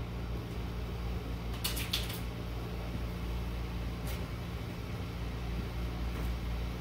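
A steady low hum fills the room, with a few brief scuffs of footsteps, about two seconds in and again about four seconds in, as a person walks across the floor.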